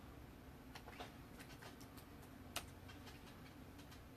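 Near silence: room tone with a low hum and faint, irregular small clicks and taps, one sharper click about two and a half seconds in.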